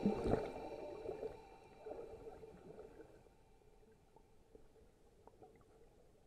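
Faint, muffled water sloshing that fades to near silence over the first few seconds.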